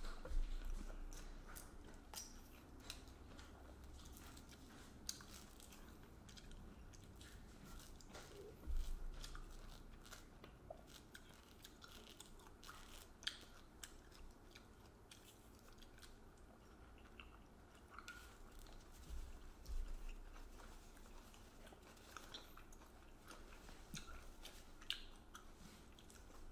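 Quiet close-up eating sounds: chewing with scattered small clicks and crackles as a mandarin is peeled and eaten. A few low bumps come about a second in, near nine seconds and near twenty seconds.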